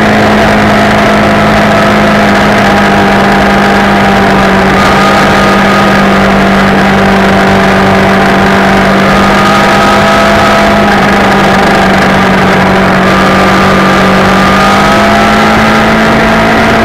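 Motorcycle engine running steadily at cruising speed, heard from a camera mounted on the bike, over a continuous rush of noise; the engine note rises a little near the end as the rider opens the throttle.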